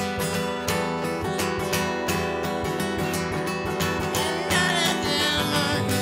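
Acoustic guitar strummed in a steady rhythm, with a man's singing voice coming in briefly about four seconds in.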